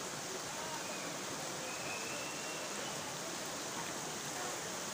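A small waterfall sheeting down a wet rock face: a steady rush of splashing water.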